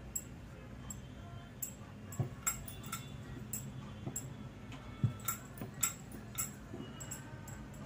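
Wooden rolling pin clicking and knocking irregularly against a wooden rolling board as paratha dough is rolled out, with two louder knocks about two and five seconds in.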